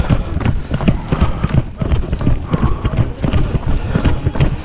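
Steady running footsteps of a runner on stone paving, one footfall after another.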